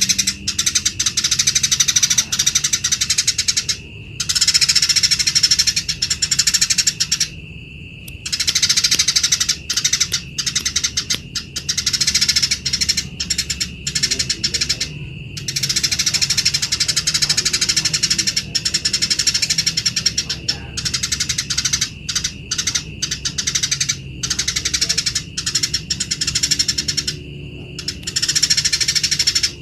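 Eurasian tree sparrows chattering harshly and very rapidly in long bouts of several seconds, broken by brief pauses: the rough 'besetan' chatter of sparrows fighting.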